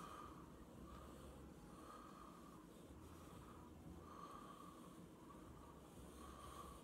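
Near silence, with a person's faint, slow breathing through the nose, swelling softly every second or two.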